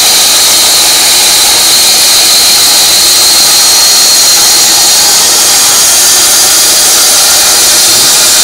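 TOTAL benchtop band saw running and cutting a block of wood fed along its fence, a loud, steady high whine with hiss.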